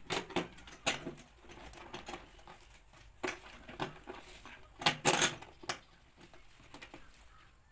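Plastic seat of a child's tricycle being worked onto the metal frame, its bolts going into the frame holes: a series of sharp clicks and knocks, the loudest cluster about five seconds in.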